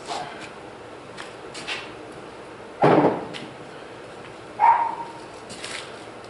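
Metal pouring mold being handled and set down: a few light knocks, a heavy thud about three seconds in, and a ringing metallic clink nearly two seconds later.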